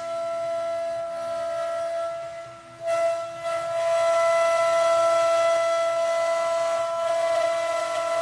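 CNC router spindle running with a steady high whine as the bit carves a wooden cylinder turning on the 4-axis rotary, with a hiss of cutting under it. The sound drops briefly about two and a half seconds in, then comes back louder as the cut resumes.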